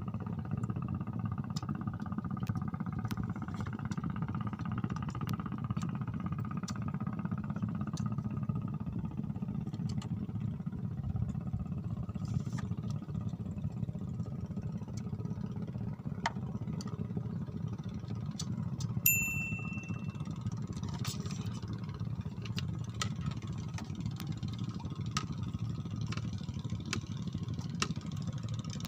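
A steady low engine-like drone, with scattered light clicks and one short high beep about two-thirds of the way through.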